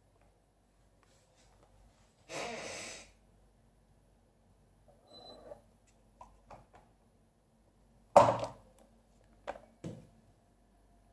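Kitten moving about an empty glass aquarium close to the microphone: a short burst of rustling a couple of seconds in, then a sharp knock about eight seconds in, the loudest sound, and two lighter knocks soon after.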